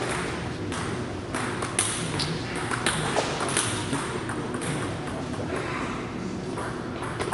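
Scattered, irregular sharp clicks of a table tennis ball tapping and bouncing between points, over the hum of a large hall.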